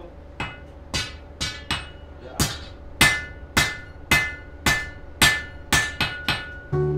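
Blacksmith's hand hammer striking metal on an anvil in a steady forging rhythm, about two blows a second, each blow ringing. Music comes in near the end.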